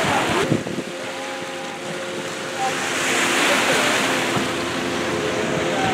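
Surf washing on the beach with wind on the microphone, under the steady drone of a small motorboat's outboard engine running past offshore. The wash of surf and wind swells about halfway through.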